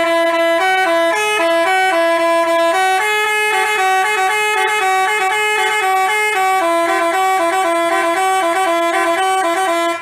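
Telolet basuri musical bus horn playing a quick tune of stepping notes, several tones sounding together. It cuts off right at the end.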